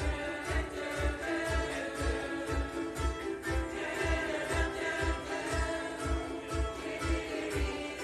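Ukulele ensemble strumming and singing together in harmony, over a steady low bass beat of about two to three pulses a second.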